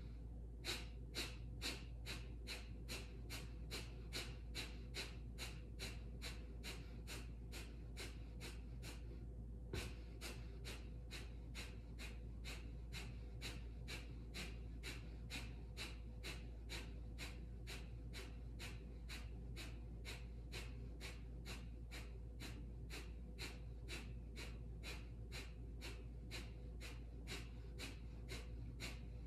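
Kapalabhati (fire breath): a woman's rapid, forceful exhales through the nose, short sharp puffs at about two to three a second, each pushed out by a snap of the lower abdomen, with passive, nearly silent inhales between. The rhythm breaks briefly about nine seconds in, then resumes.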